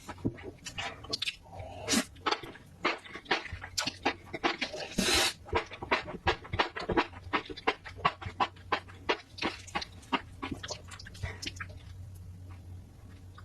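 Close-miked eating sounds of black bean noodles and spicy seafood: rapid wet chewing and mouth clicks, with a longer noisy sound about five seconds in. The clicks thin out near the end.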